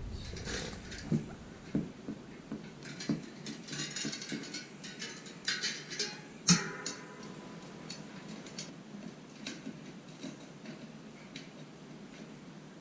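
Scattered light metallic clicks and clinks of a bicycle wheel, cassette and tools being handled. About six and a half seconds in comes a sharper metal knock that rings briefly.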